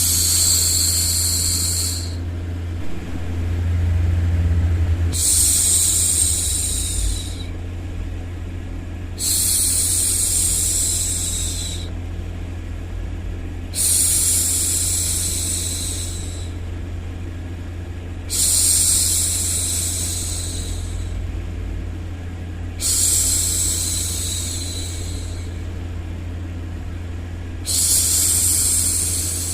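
A woman's voice shushing: long 'shhh' sounds, each about two and a half seconds, repeated about every four and a half seconds, over a steady low hum of background white noise.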